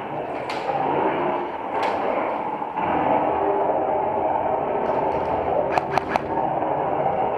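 Airsoft rifle shots: single sharp snaps about half a second and two seconds in, then a quick burst of three about six seconds in, over a steady noisy background.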